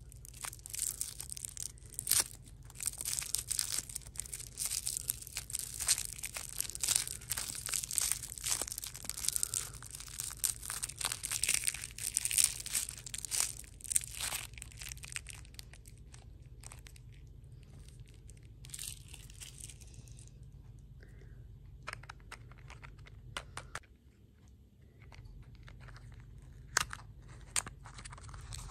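Crinkly plastic lollipop wrapper being torn and peeled off by hand: dense crackling for about the first fifteen seconds, then only occasional rustles and small clicks.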